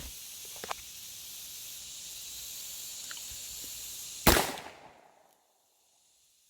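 A single loud gunshot about four seconds in, with a short ringing tail, over a steady chirring of insects.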